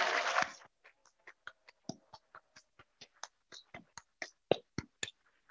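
One person clapping hands close to a podium microphone: a run of separate, uneven claps, about four or five a second, stopping just before the end. It follows a short loud noisy burst at the very start.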